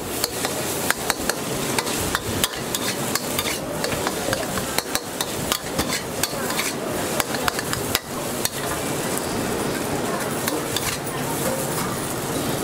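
A metal wok spatula scrapes and clanks against a steel wok while chicken fried rice sizzles as it is stir-fried. Sharp clanks come several times a second for the first eight seconds or so, then fewer over the steady sizzle.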